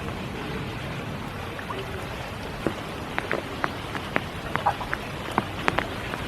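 Spring rain falling steadily, with a scatter of louder single drops striking close by from about halfway through.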